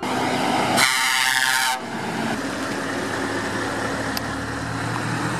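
Lorry air horn sounding once for about a second, over the steady running of heavy truck diesel engines as Scania lorries drive slowly past.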